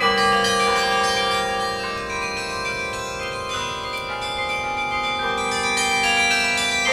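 The Millennium Carillon's 72 tower bells being played in a slow passage. New notes are struck every second or so, the first the loudest, and each bell rings on and overlaps the next.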